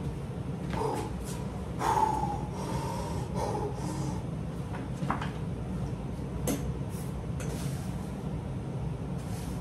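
A lifter's hard breathing and effortful exhales as he sits down and settles into a dumbbell press, with a few sharp knocks and clinks from the iron dumbbells, over a steady low hum. The loudest sound is a strained exhale about two seconds in.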